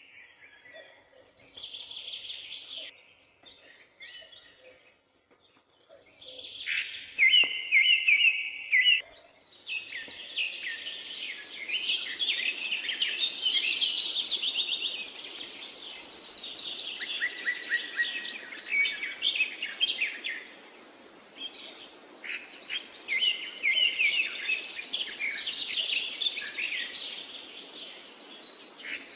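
Songbirds chirping and trilling in short repeated phrases, sparse at first. From about ten seconds in the song is denser and higher-pitched over a steady background hiss.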